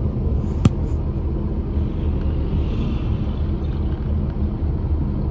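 A bus engine runs with a steady low rumble, heard from inside the cabin. One sharp click comes less than a second in.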